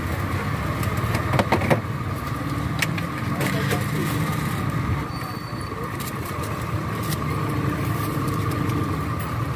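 A steady low engine-like hum with a thin steady tone above it, under the clatter of a drink stall: a few sharp clicks and knocks about one and a half seconds in, and lighter ticks later, as a scoop and a plastic cup are handled on a stainless-steel counter.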